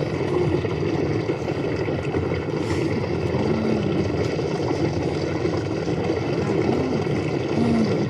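A stampede sound effect: the hooves of a running herd make a continuous dense rumble, with a few short animal calls near the middle and end.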